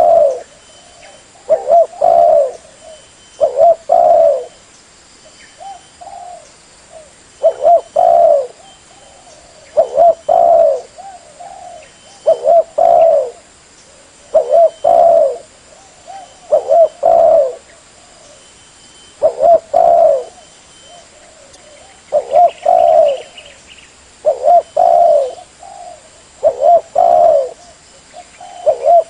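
Spotted dove cooing: a phrase of two or three mellow coos repeated about every two to two and a half seconds, with one or two longer pauses. The call is a lure meant to draw in other spotted doves.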